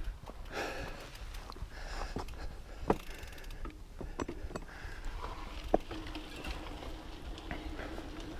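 Specialized Camber Comp 650b mountain bike rolling over a dirt singletrack trail: a low, uneven rumble from the tyres and frame with rattles and clicks from the bike, and two sharp knocks about three and six seconds in.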